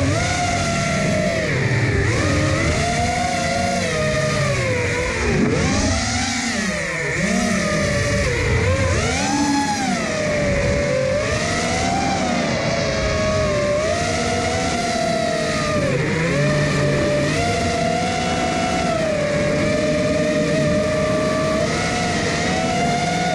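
FPV quadcopter's brushless motors and propellers whining, the pitch rising and falling continually with throttle changes.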